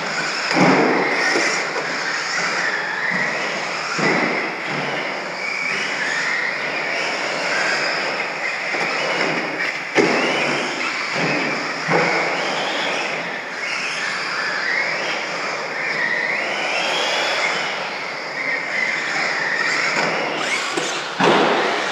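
Radio-controlled stadium trucks running laps, their motors and drivetrains whining in a pitch that keeps rising and falling with the throttle. Several sharp knocks come through, the loudest about ten seconds in.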